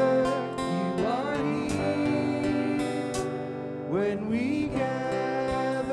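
Worship song music played on acoustic guitar, with notes sliding up in pitch about a second in and again about four seconds in.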